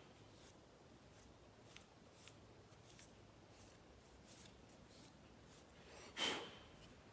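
Faint scattered clicks and small scrapes of a hand tool working small screws and parts, with one brief louder rush of noise about six seconds in.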